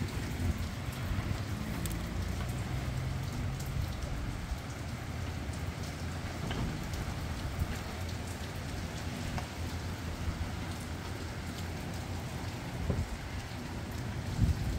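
Steady rain falling, with scattered drops ticking close by, and gusty wind rumbling on the microphone.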